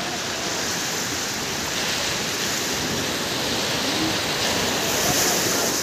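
Surf washing onto a sandy beach: a steady rush of small breaking waves that swells a little near the end.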